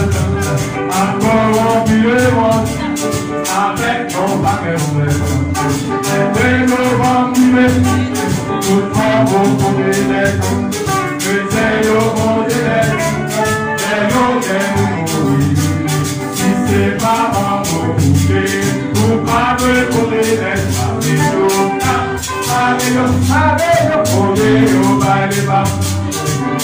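Male vocal group singing a Haitian Creole gospel song in harmony through microphones and a PA, with a steady quick ticking beat underneath.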